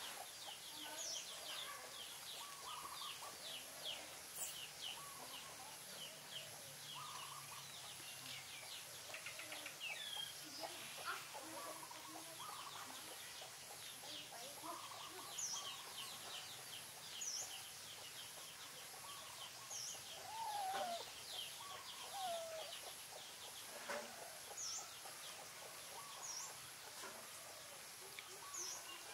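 Birds calling: rapid runs of short high chirps, scattered sharp high notes and some lower calls, over a faint steady high-pitched buzz.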